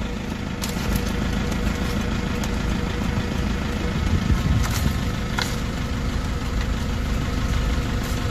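Toyota Fortuner's diesel engine idling steadily, heard from inside the stationary car, with a few faint clicks.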